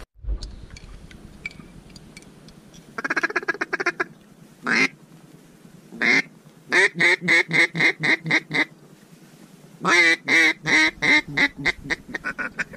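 Duck quacks in loud sequences. One drawn-out call comes a few seconds in, then two single quacks, then a run of about eight evenly spaced quacks. Near the end a faster run of quacks grows quieter.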